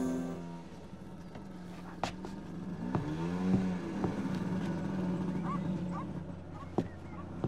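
Small motor scooter with a sidecar running as it approaches, its engine note rising and falling about halfway through and again near the end, with a few sharp clicks.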